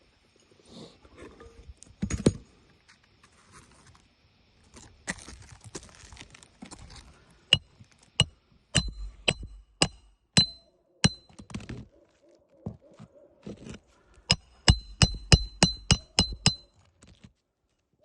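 Hammer blows ringing on metal, driving roofing nails through asphalt shingles: sharp single strikes, then a quick run of about eight near the end.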